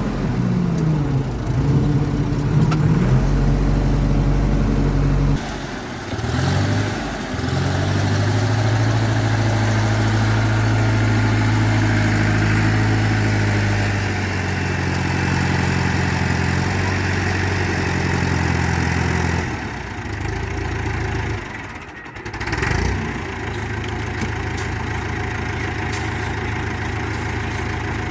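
Backhoe's diesel engine running under work, its pitch rising and falling as it is revved; it drops back briefly about five seconds in and again around twenty seconds in, then picks up again.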